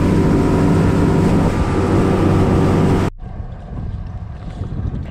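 Yamaha 300 hp four-stroke outboard running at speed, mixed with wind buffeting the microphone and water rushing past the hull. About three seconds in, the sound drops suddenly to a much quieter low rumble.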